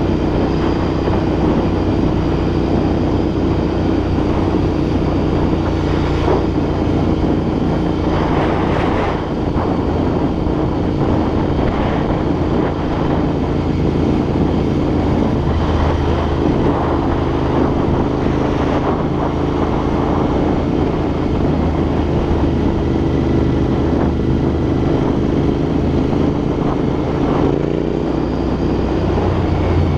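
Royal Enfield INT650's 648 cc parallel-twin engine running through aftermarket Red Rooster exhausts while riding at a steady pace, its note rising slightly near the end. Wind noise on the microphone.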